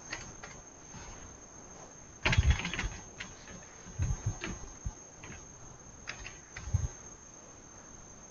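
Quiet room tone with a faint steady high-pitched whine, broken by scattered computer-keyboard clicks and soft thumps as a label is typed. The loudest is a short burst a little over two seconds in.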